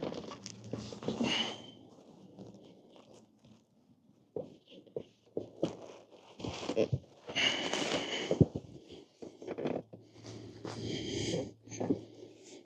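Rubber scooter tire scraping, creaking and squeaking against the wheel rim as it is levered and stretched back over the rim's lip with tire tools, with scattered clicks of the tools. The squeaks come in a few short spells: about a second in, around the middle, and near the end.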